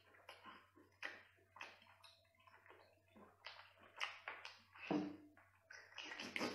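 A person biting into and chewing a firm piece of seafood meat: a run of short mouth clicks and smacks, two or three a second, over a faint steady hum.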